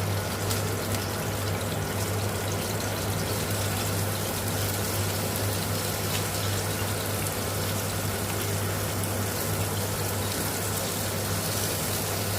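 Salmon frying in a non-stick skillet: a steady sizzle over a steady low hum.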